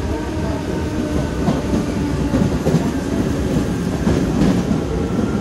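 A moving train heard from its open doorway: a steady running rumble, with the wheels knocking now and then over rail joints.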